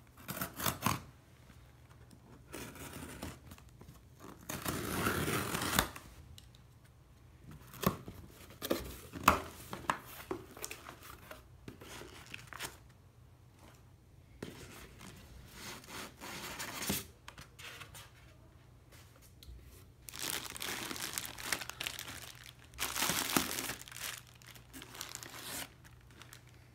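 Packing tape being cut and ripped off a cardboard shipping box, then the cardboard flaps and the foam-lined cooler inside being opened and unpacked, with bursts of tearing, rustling and crinkling and a few sharp knocks.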